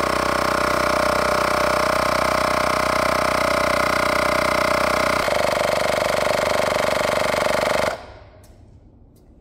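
Hoto Air Pump Pro battery-powered tire inflator running steadily as it pumps up a car tire, its pitch shifting slightly about five seconds in, then cutting off abruptly about eight seconds in. It stops at 59 PSI, short of its 64 PSI setting, because its lithium battery has run flat.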